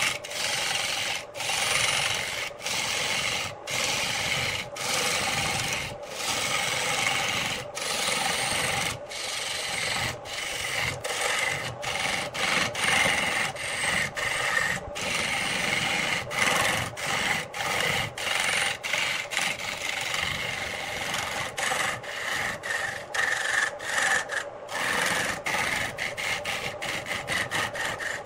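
Turning tool cutting a spinning wooden blank on a wood lathe: a continuous rasping scrape as shavings peel off, broken by many brief gaps that come more often towards the end. A faint steady hum from the lathe motor runs underneath.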